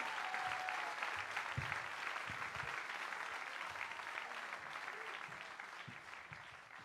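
Audience applauding, the clapping gradually thinning and dying away toward the end.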